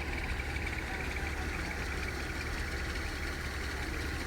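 Harvesting machine's engine running steadily, a constant low drone with no change in speed.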